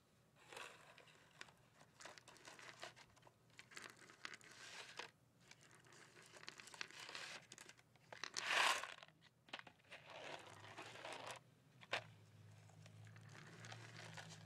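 Cardboard Mike and Ike candy box being handled and crinkled as the chewy candies spill out and are moved around on a table, in a string of rustling bursts with one louder burst about two thirds of the way in and a sharp tick near the end.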